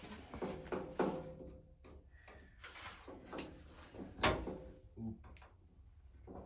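Hand work on truck parts: a series of knocks, clicks and short scrapes of tools and metal parts being handled, with one sharper knock about four seconds in.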